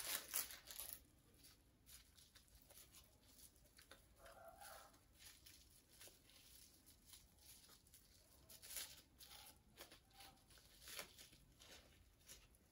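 Faint, scattered crinkling and rustling of a small plastic jewelry bag being handled and opened by hand, in short crackles with the clearest ones about 9 and 11 seconds in.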